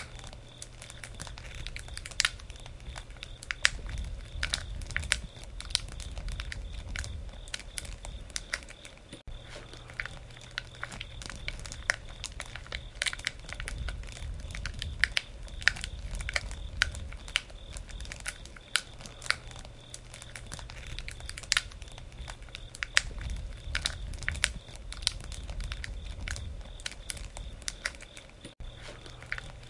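Wood campfire crackling and popping: irregular sharp snaps over a low rumble of the flames that swells and fades every few seconds.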